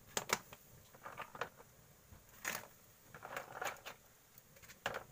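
Clam shells being dropped by hand from a basin into a pan of boiling water: a string of short, sharp clacks of shell on shell and on the pan, irregularly spaced, about eight or nine in all.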